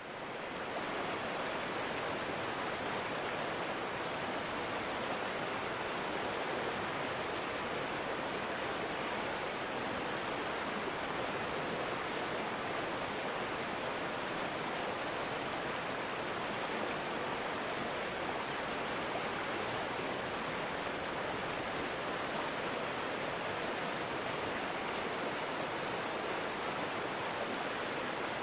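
Waterfall rushing steadily, an even wash of falling water that fades in over the first second.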